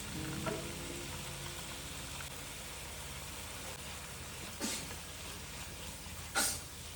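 Food sizzling steadily as it fries in a pan, with two short, sharp clacks of a utensil against the pan, the second one louder, near the end.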